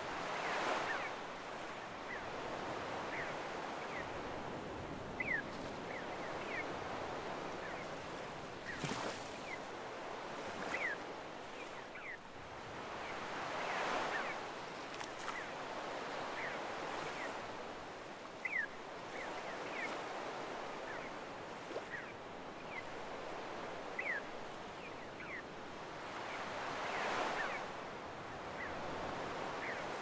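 Small sea waves washing up a sandy beach, the surf swelling about every thirteen seconds over a steady wash. Gulls give many short, high calls throughout.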